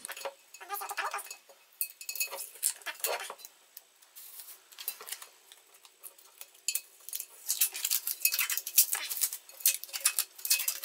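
A large glass jar handled on a countertop: light knocks and clinks of the glass, then a run of quick fingernail scratches and rustles as a paper label is picked at and peeled off the glass.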